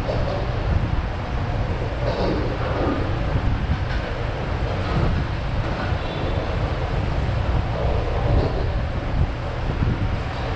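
Steady low rumble of background noise, with faint voices now and then.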